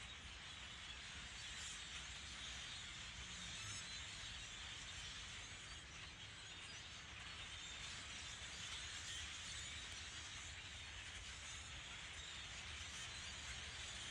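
Steady chatter of a very large flock of birds, countless calls blending into one continuous din, with a faint low rumble underneath.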